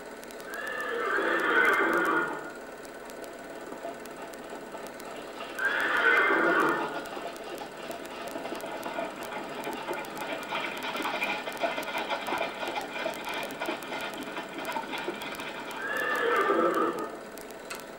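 A horse whinnies three times, each call dropping in pitch: about a second in, about six seconds in, and near the end. Between the second and third whinny, hooves clatter.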